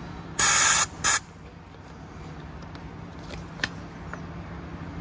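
Compressed air hissing in two short bursts: the first about half a second long, starting just under half a second in, and the second briefer, right after it. A low steady hum runs underneath.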